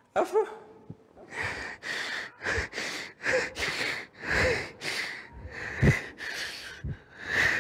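A man sobbing, overcome while reciting the Quran: a string of about a dozen ragged, gasping breaths and short choked cries.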